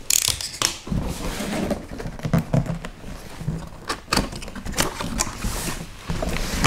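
Large cardboard box being handled and opened: irregular scraping and rustling of cardboard with scattered knocks and clicks.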